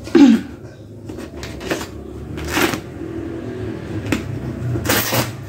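Fabric cover and stitching of a rain-soaked kapok mattress being ripped open with a knife and by hand: several short tearing, rustling bursts, with a brief loud falling-pitched sound right at the start.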